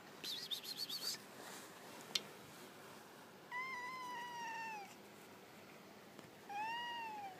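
Domestic cat meowing twice: a long, slightly falling meow about halfway through and a shorter, arched meow near the end. Near the start there is a brief run of rapid high chirps.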